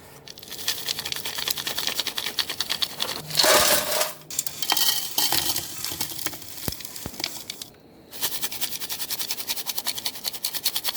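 Roasted gold ore and ash being shaken in a fine 40-mesh classifier screen: a rapid, rhythmic gritty rattle of grains on the mesh, stopping briefly about eight seconds in before starting again.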